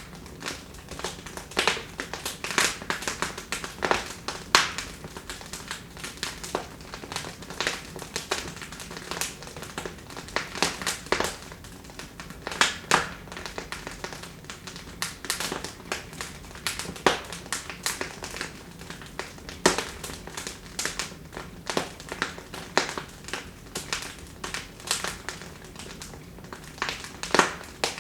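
Wood fire in a fireplace crackling, with irregular sharp pops and snaps over a low steady hiss.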